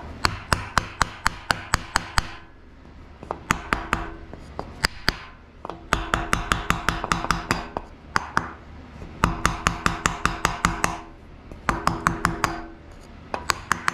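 Hammer striking a wooden block held against the new timing chain sprockets of a Pontiac 350 V8, driving them onto the camshaft and crankshaft. Quick runs of sharp taps, about six a second, come in several bursts with short pauses between.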